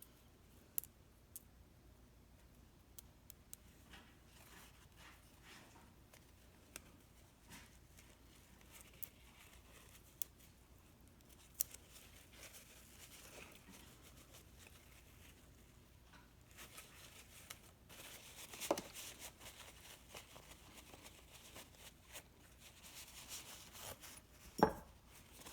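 Faint scraping and rubbing as small metal divider parts are cleaned by hand, with scattered light clicks. The rubbing grows denser about halfway through, and a single sharp knock comes near the end.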